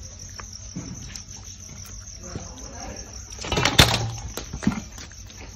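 Crickets chirping steadily in a high, pulsing trill. About three and a half seconds in comes a short, loud burst of wet slapping and rattling from the fish in a woven bamboo basket.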